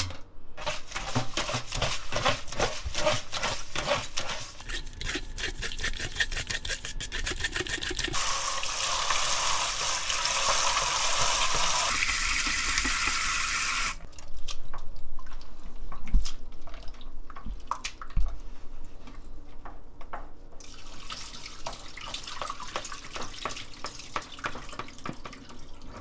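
Raw shucked oysters being washed by hand in a plastic bowl of water at a kitchen sink, with irregular splashing and sloshing as they are stirred. About eight seconds in, a faucet runs into the bowl for several seconds, and more splashing follows.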